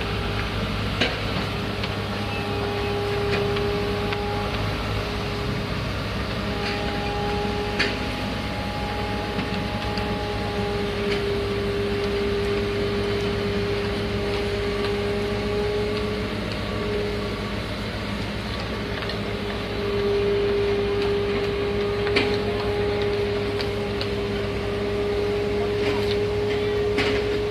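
Heavy road-construction machinery running steadily: a low engine drone with a held whine that swells and fades, and a few sharp clicks or knocks.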